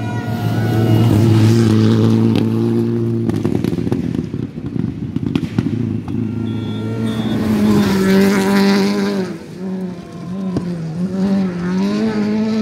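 Rally cars at speed on a gravel stage. The engine holds a steady high note for the first few seconds, then rises and falls with gear changes and throttle lifts. Loose stones clatter and crackle under the tyres.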